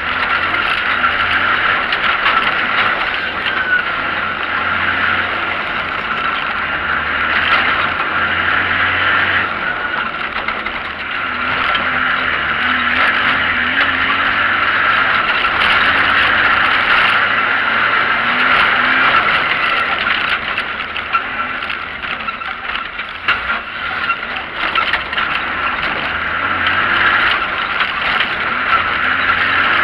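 Off-road vehicle driving over a rough dirt track, heard from a camera on its bonnet. The engine rises and falls with the throttle under a steady din of driving noise.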